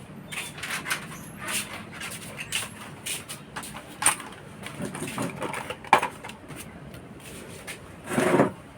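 Small tools and phone parts handled on a workbench: irregular clicks, taps and short scrapes, with a louder brief scrape near the end.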